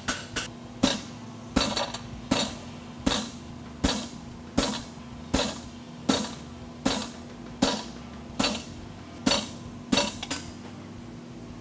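Hand hammer striking a handled fuller held in the groove of a red-hot draft horseshoe on the anvil, creasing the shoe's fuller line. There are a few quick blows at the start, then steady ringing metal-on-metal blows about every three-quarters of a second, which stop near the end.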